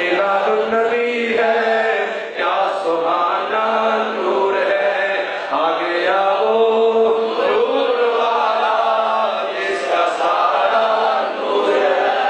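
A man chanting verse in a melodic, drawn-out style with long held notes, amplified through a microphone.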